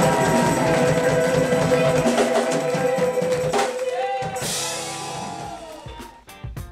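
Live funk band holding sustained notes that thin out and fade. About four seconds in there is a cymbal crash, and near the end come separate, evenly spaced drum hits.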